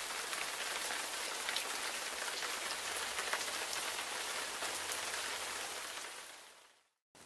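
A downpour of rain: a steady hiss of falling drops that fades away near the end.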